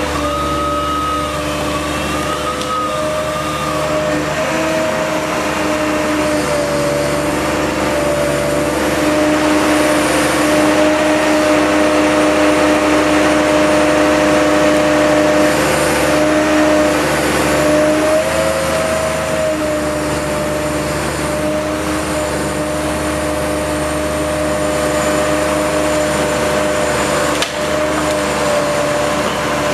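DOLL Tree Trimmer truck-mounted felling crane running steadily as it works, its engine and hydraulics giving a steady whine whose pitch shifts slightly a few times as the boom moves.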